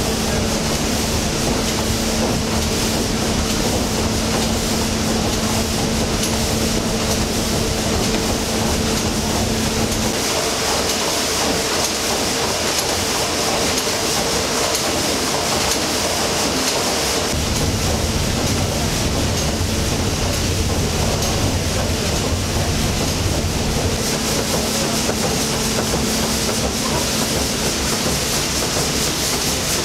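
Triple-expansion reciprocating steam engine running, a steady mechanical clatter from its moving cranks, rods and valve gear. A steady hum underneath stops about a third of the way in and comes back near the end.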